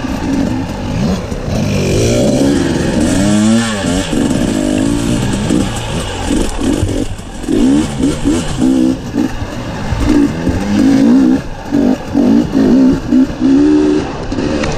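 Dirt bike engine revving up and down as the rider works the throttle along a trail, with quick rising runs of revs that cut off repeatedly in the second half.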